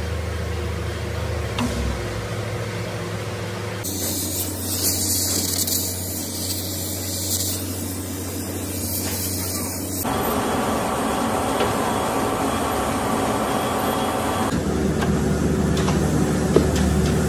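Battery factory machinery noise: a steady low hum, with a loud hiss for several seconds in the middle. The sound changes abruptly a few times between shots.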